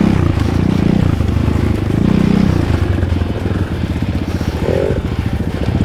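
Kayo T2 dirt bike's engine running steadily while riding off-road.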